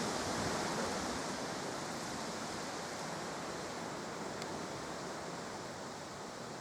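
Steady wind, an even rushing hiss with no distinct events and one faint tick about four and a half seconds in.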